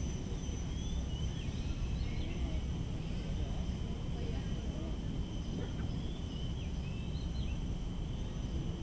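Tropical garden ambience: a steady high insect drone with a few short bird chirps, about a second in and again near the end, over a low steady rumble.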